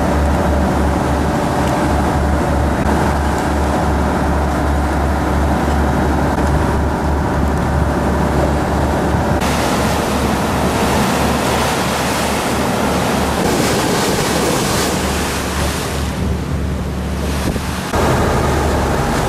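A motor tour boat under way at speed: a steady low engine drone under the rush of the wake and wind buffeting the microphone. The sound changes abruptly twice, about halfway through and near the end.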